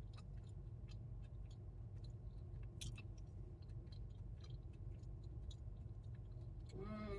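A person chewing food quietly, with faint scattered mouth clicks, over a steady low hum.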